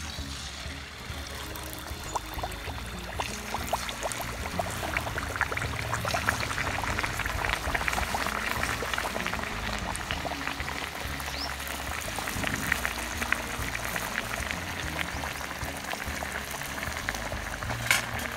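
Bottle-gourd and rice-flour dough discs deep-frying in hot oil in an iron kadai, just after going in: a dense sizzle of many small popping, crackling bubbles that grows fuller over the first few seconds and then keeps on steadily.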